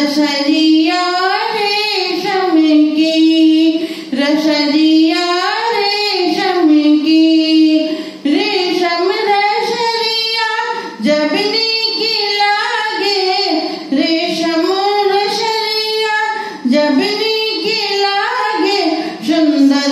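A woman singing a dadra folk devotional song solo with no instruments, in long held phrases of about three seconds with brief breaths between them.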